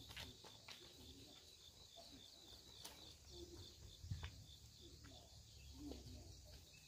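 Near silence: faint outdoor ambience with a few soft, scattered clicks, the loudest about four seconds in.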